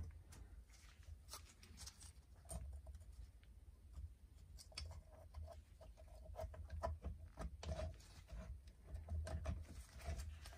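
Faint handling sounds of an engine cylinder being worked down its studs over the piston and rings, rocked gently side to side: scattered small metal clicks and rubbing, over a low steady hum.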